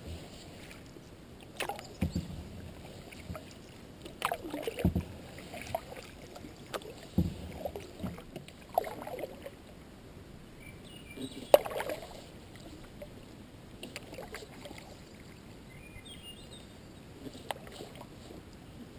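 Paddling a skin-on-frame canoe: irregular paddle strokes with splashes and short sharp knocks every one to three seconds, the loudest knock about halfway through.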